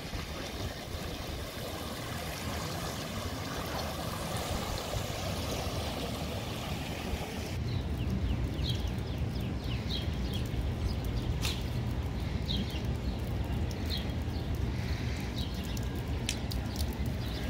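Floodwater on a street sloshing and trickling. After a cut about eight seconds in, the water laps around a parked car's wheels over a steady low rumble, with short high chirps scattered through it.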